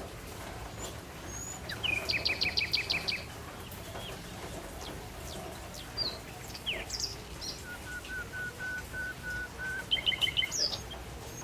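Songbirds singing and calling. A quick run of about nine repeated high notes comes about 2 s in, a slower string of level, lower whistles comes near the end, and a short quick run of high notes follows it, with scattered single chirps between.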